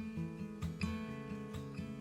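Background music: a strummed acoustic guitar playing a song's instrumental passage.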